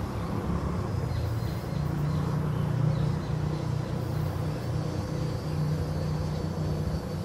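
Distant street traffic: a steady low rumble of passing vehicles.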